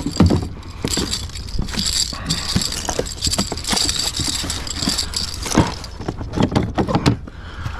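Striped bass and its hooked lure rattling and knocking against the plastic cockpit of a fishing kayak as the fish is handled and unhooked: an irregular clatter of sharp knocks.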